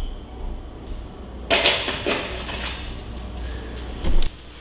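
A putter taps a golf ball about a second and a half in, and the ball rolls across a concrete floor. A short, louder thump comes near the end.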